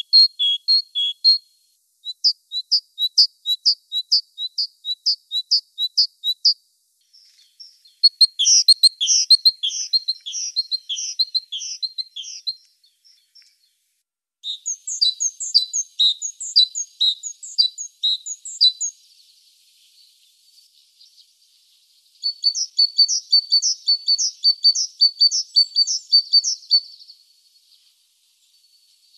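Great tit singing: bouts of high, repeated notes with short pauses between them. Some bouts are evenly spaced notes at about three a second; others are quicker, busier phrases.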